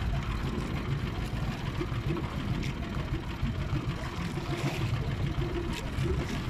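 Steady low rumble of wind buffeting the microphone and sea water washing against a small outrigger fishing boat on choppy water.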